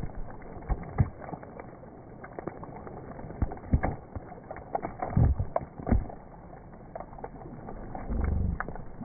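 Slowed-down sound of heavy rain hitting a river's surface right at the microphone: a dense patter of separate drop hits and splashes, with a few louder thuds around the middle and river water sloshing over the microphone near the end.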